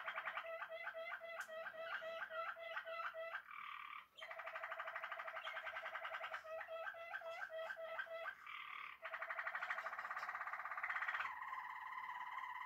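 Domestic canary singing: long, fast rolling trills alternating with phrases of quickly repeated notes, the song breaking off briefly about four seconds in and again near nine seconds, ending on a steady warbled roll.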